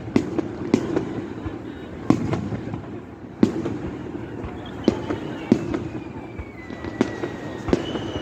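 Fireworks bursting overhead: a string of sharp bangs at irregular intervals, roughly one or two a second. A thin whistle falls slowly in pitch through the middle, and another starts near the end.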